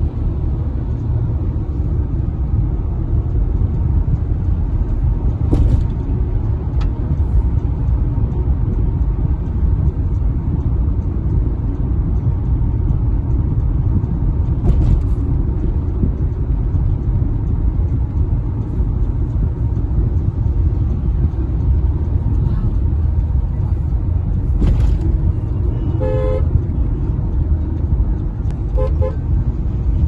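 Steady low road and engine rumble heard from inside a moving car's cabin. Near the end a car horn gives a few short toots, then a couple more a few seconds later.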